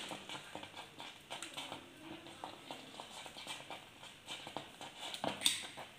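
Metal ladle scraping and tapping against a metal pressure cooker while thick, soft pongal is scooped out and served: a run of light, irregular clicks, with a louder knock about five seconds in.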